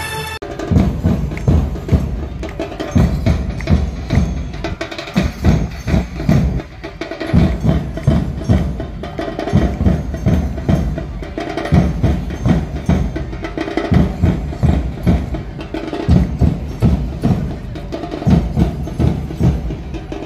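Percussion music with a steady drum beat, about three beats a second, over a faint sustained melody.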